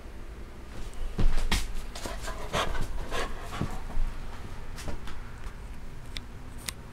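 A Doberman–Labrador mix dog panting and making a string of short, excited vocal sounds, loudest just over a second in and thinning out after about five seconds.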